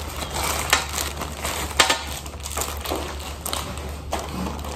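Plastic packaging crinkling and rustling as clear plastic bags and a poly mailer are handled, with several sharper crackles.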